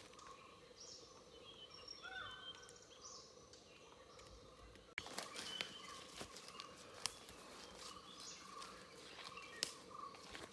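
Faint forest ambience with birds giving short chirps and a brief whistle. About halfway through there is an abrupt break, after which sharp clicks and crackles come at irregular intervals.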